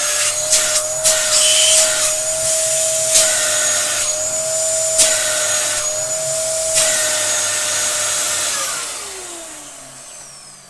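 Dyson DC07 Animal upright vacuum cleaner running with a steady high whine and airflow hiss, with a few sharp knocks along the way. It is switched off about eight and a half seconds in, and its whine falls away as the motor spins down.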